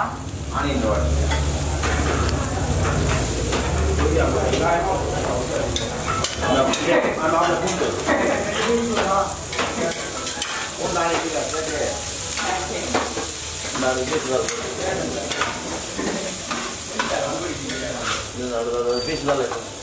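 Dosa batter and oil sizzling steadily on a hot flat griddle (tawa), with frequent short scrapes and clicks throughout.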